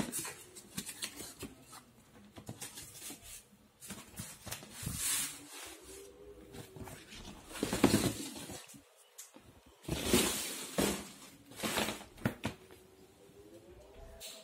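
Irregular rustling, scraping and crinkling of a cardboard box and its packing as a woven plastic-tape basket is pulled out and handled, with several louder bursts.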